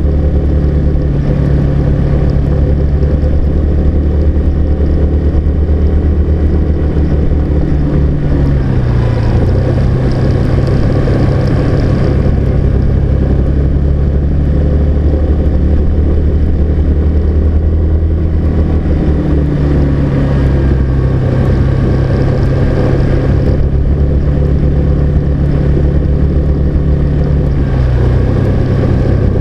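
A car's engine and road noise while driving up a mountain road. The engine note drops about nine seconds in, rises again around twenty seconds, and drops once more near the end, as the engine speed changes with the climb and the bends.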